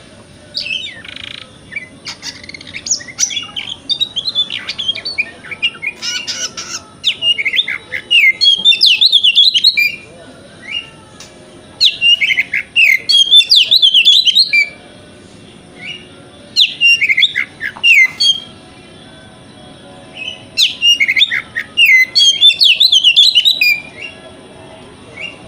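Oriental magpie-robin (kacer) singing in loud bursts of rapid, varied whistled and chattering notes. There are four song bouts with short pauses between them.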